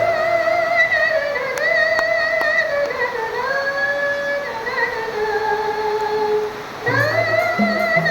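Rebana ensemble performing: a singer holds a long, wavering melodic line with vibrato while the frame drums drop out. The drums come back in near the end.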